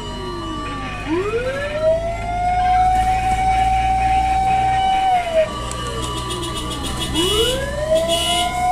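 Fire truck siren wailing: a long held high note that slides down and climbs back up, about every six seconds, heard from inside a fire truck's cab.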